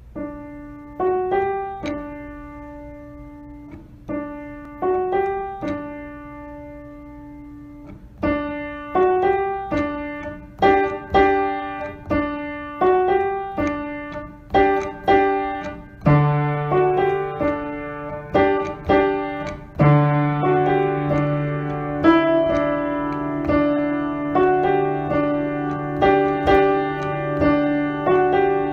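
Background piano music: a slow melody of struck notes, sparse at first, then a steady run of notes from about a third of the way in, with a low sustained bass note joining about halfway.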